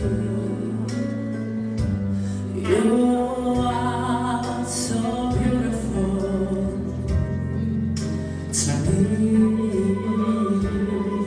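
A male vocalist sings long held notes into a handheld microphone over an instrumental backing track, sliding up into the notes.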